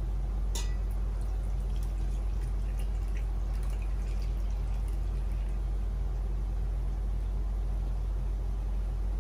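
Milk being poured slowly from a glass into a stainless steel mixing bowl of dry powder, a faint liquid trickle. A steady low hum runs underneath and is the loudest thing heard.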